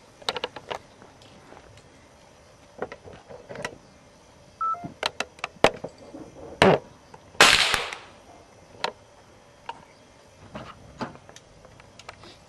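A single handgun shot about seven and a half seconds in, the loudest sound, with a short fading tail. Around it come sharp clicks and knocks of gun handling.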